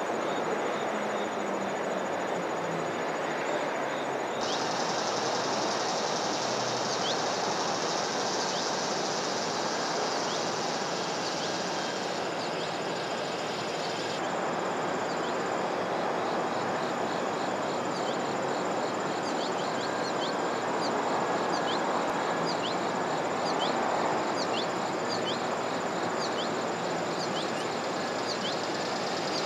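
Outdoor ambience: insects trilling steadily, a fast even pulsing and a high thin tone, over a steady wash of background noise, with short high chirps repeating about once a second through most of it.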